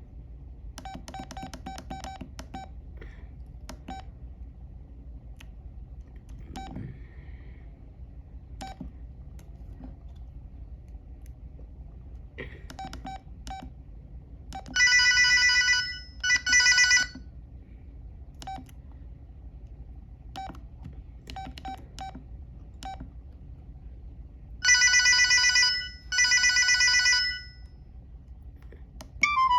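LG VX6000 flip phone: keypad presses, each a click with a short faint beep, and twice an electronic telephone-style ring plays as a ringtone in two quick bursts (ring-ring), about fifteen seconds in and again about twenty-five seconds in.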